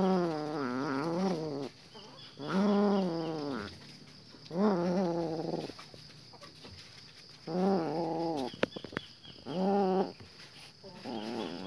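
Domestic cat giving a series of low, drawn-out yowls, about six calls of roughly a second each, while it bites and kneads a cloth. A few sharp clicks come a little after the middle.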